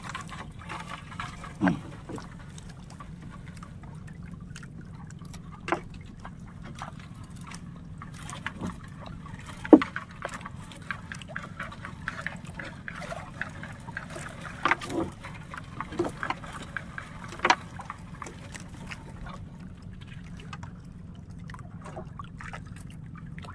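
Water dripping and splashing as a wet fishing net is hauled hand over hand over the side of a small boat, with scattered sharp knocks against the hull over a steady low background noise.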